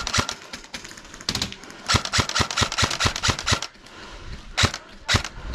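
Airsoft guns firing: quick strings of sharp, snapping shots at about five a second, a short lull, then two single shots near the end.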